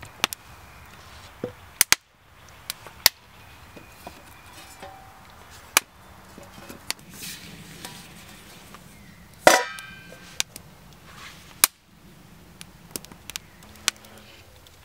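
Small wood fire crackling, with sharp irregular snaps and pops from burning kindling and coals. There is a short, loud squeaky scrape about two-thirds of the way in.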